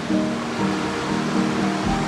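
Background music of held, steady notes over a continuous rush of flowing river water.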